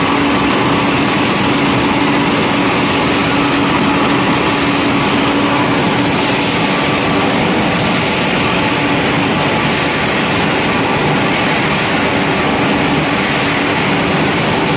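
A row of pellet mills running together: a loud, steady industrial machinery din with a steady hum that fades about halfway through.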